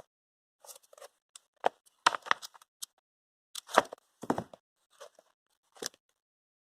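Items and packaging being handled: a run of irregular clicks, light knocks and short rustles, loudest about two seconds and four seconds in, stopping near the end.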